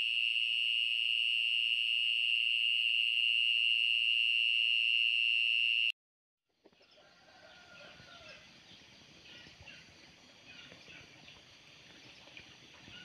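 A loud, steady high-pitched beep-like tone that cuts off abruptly about six seconds in. After a short silence, a quieter outdoor ambience follows, full of many short chirps from small animals.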